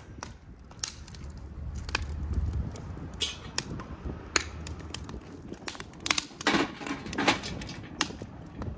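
Wood fire crackling in a steel camp stove, with metal clanks and scrapes as a cast-iron kazan is set down on the stove by its handle. A cluster of louder knocks comes about six to seven seconds in.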